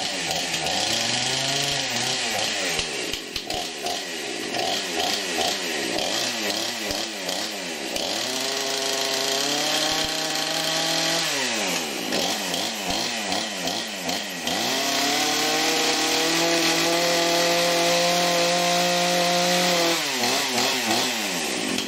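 Craftsman S205 20-inch 46 cc two-stroke chainsaw running just after a cold start, its engine still cold. The revs rise and fall over and over for the first several seconds, then are held high twice, briefly near the middle and for about five seconds near the end, dropping back each time.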